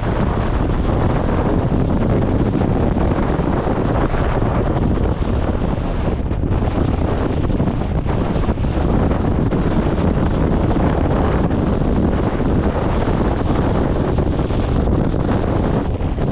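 Strong wind buffeting the microphone: loud, steady rushing noise, heaviest in the low end.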